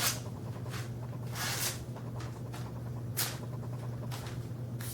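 Knife blade slicing thin phone book paper, a string of short hissing rustles at irregular intervals, the edge just sharpened on cardboard cutting through it.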